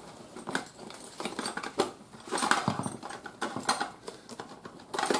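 Rummaging in a soft-sided gear bag: rustling and scattered light clicks as items are shifted and a thin wire tent peg is drawn out.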